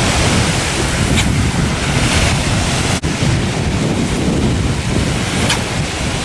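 Wind buffeting the microphone: a loud, steady rushing noise with a heavy low rumble, broken by a brief dropout about three seconds in.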